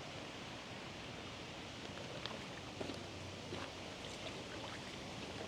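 Steady rush of flowing water, with a few faint clicks and knocks.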